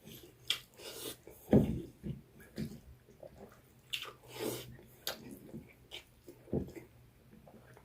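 Close-miked chewing and lip-smacking while eating: irregular wet mouth clicks and smacks, the loudest about one and a half seconds in.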